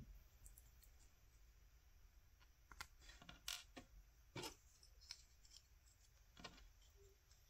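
Near silence broken by a handful of faint, scattered clicks and taps from about three seconds in: plastic parts of a High Grade Gunpla model kit being handled.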